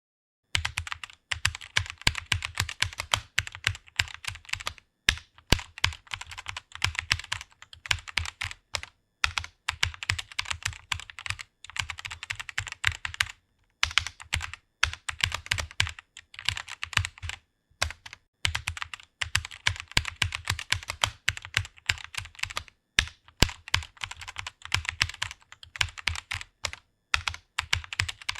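Rapid typing on a computer keyboard: a fast, continuous run of keystroke clicks that starts about half a second in, with brief pauses every few seconds.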